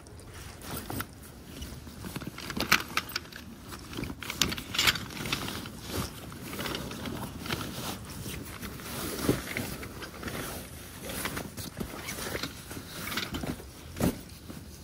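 Hands rummaging in a canvas duffel bag and lifting out a packed tent: fabric rustling and scraping, with irregular clicks and knocks and a sharper knock near the end.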